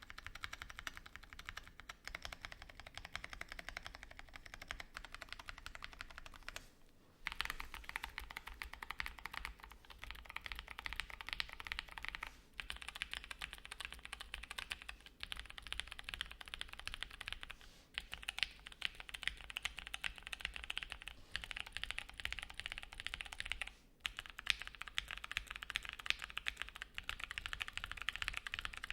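Continuous typing on a Luminkey x Bowl LX60 mechanical keyboard with Gateron Lanes switches, an o-ring mount, a polypropylene plate with plate foam, and GMK keycaps. Dense keystroke clicks run with brief pauses about 7 and 24 seconds in.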